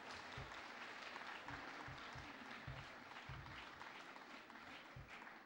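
Faint applause from an audience, a steady patter of many hands, with occasional dull low thumps.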